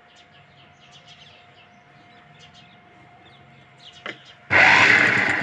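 Faint bird chirps over a quiet room, then about four and a half seconds in a sewing machine starts running loudly, stitching fabric.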